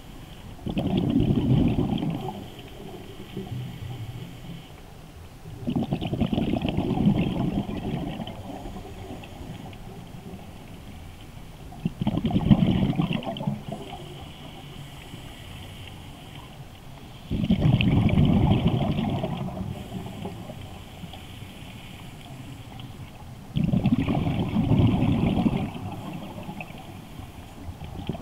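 Scuba diver breathing on a regulator: a soft hiss on each inhale, then a loud rush of exhaled bubbles, five breaths about every five to six seconds.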